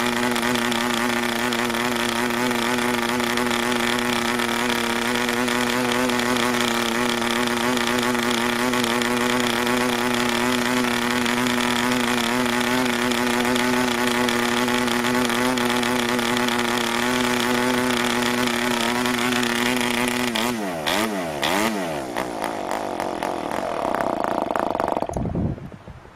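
PAW 40 model diesel engine with a 12x5 propeller, running steadily at high speed. About 20 seconds in it surges up and down in pitch, runs rough, and cuts out near the end: it was running rich and under-compressed.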